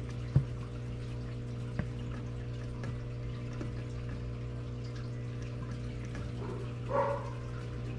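Steady low electrical hum with a faint hiss behind it, a sharp click under a second in and another about two seconds in, and a short voice-like sound near the end.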